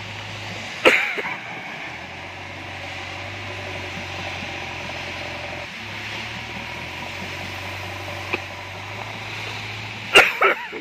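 JCB backhoe loader's diesel engine running steadily while its front loader bucket works a pile of stone chips, with a loud sharp clank about a second in and a quick cluster of clanks near the end.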